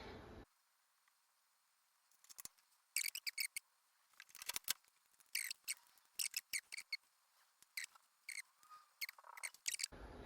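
Faint, scattered thin clicks and light scrapes of small metal parts being handled and test-fitted on a mini lathe, starting about two seconds in.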